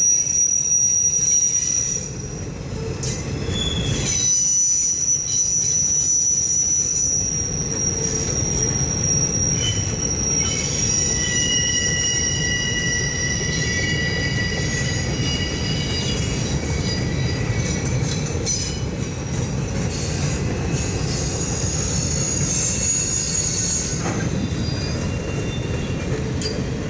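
CSX mixed freight train's rail cars rolling past, their wheels squealing in several steady high tones over a continuous low rumble. The squeal stops and the end of the train passes near the end.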